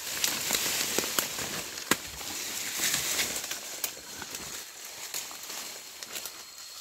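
Dry bamboo leaves and twigs crackling and snapping underfoot, with a rustling swish of clothes and stems brushing through the thicket in several swells.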